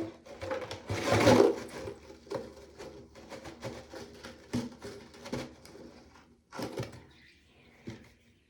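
Handling noises while making slime activator: a short noisy rush about a second in, likely borax being shaken or poured into hot water, then scattered clicks and knocks of containers being handled.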